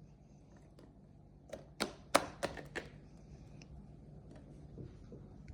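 A handful of sharp clicks and taps, clustered about a second and a half to three seconds in, with a few fainter ticks later, over faint room noise.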